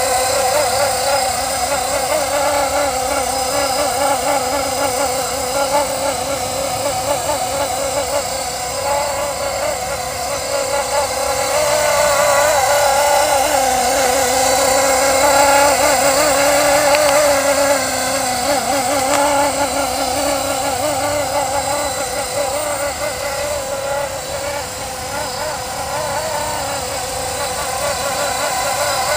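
Electric motor and rotors of a Blade SR radio-controlled helicopter in flight, a steady whine whose pitch wavers slightly as the rotor speed changes.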